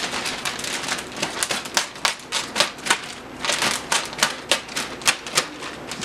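Clear plastic wrapping being slit and torn open with an obsidian knife: a run of sharp, irregular crackles and snaps.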